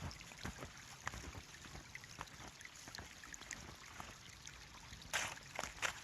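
Faint trickling of a small stream running under ice and snow, with scattered light crackles. Near the end come a few short crunching steps of snowshoes in snow.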